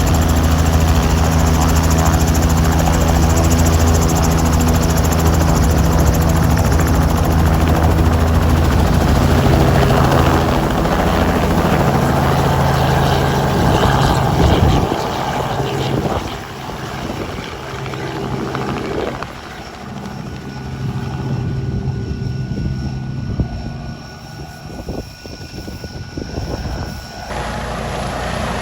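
Helicopter running, a steady low rotor and engine drone. It is loud for about the first fifteen seconds, then quieter and uneven, and changes abruptly near the end.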